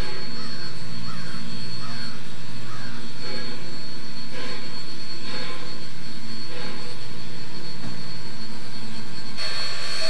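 Standing steam locomotive, ex-Chicago & North Western 4-6-0 No. 1385, hissing steam from the front near its cylinders, over a steady low rumble that swells and fades unevenly.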